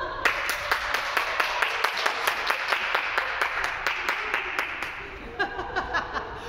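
A small group applauding, with claps standing out in a quick even rhythm of about five a second; voices come in near the end.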